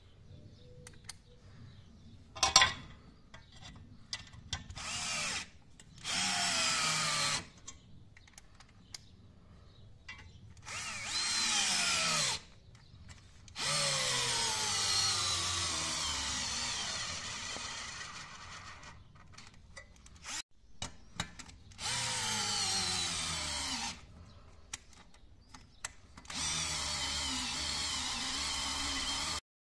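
Cordless drill-driver driving screws through a steel wall bracket into brick, in about six separate bursts, the motor's whine falling in pitch during each one. A sharp knock about two and a half seconds in is the loudest single sound.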